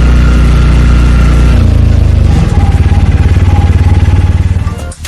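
Local bus engine running steadily, heard from on board. Its low note steps down about a second and a half in and then pulses evenly.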